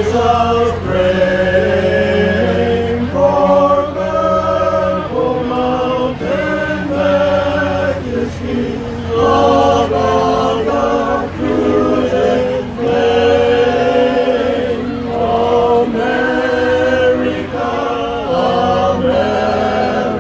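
Barbershop men's chorus singing a cappella in close harmony, slow sustained chords that change every second or two.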